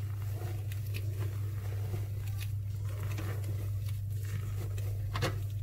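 A silicone spatula folding thick chocolate batter in a stainless steel bowl: soft scrapes and short knocks against the bowl, the sharpest a little after five seconds in, over a steady low hum.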